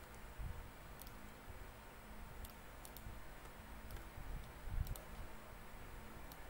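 Sparse, sharp clicks of a computer mouse, about eight in six seconds, over a faint steady hiss, with a dull low thump about five seconds in.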